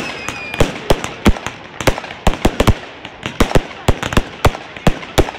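Fireworks display: a rapid, irregular run of sharp bangs from shells bursting, several a second. A falling whistle dies away about half a second in.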